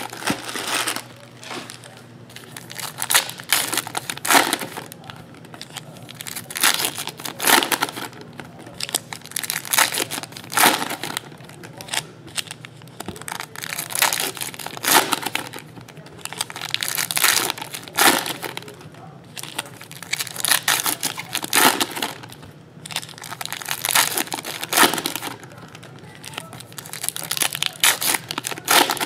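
Foil wrappers of trading card packs being torn open and crinkled by hand, in repeated bursts of rustling.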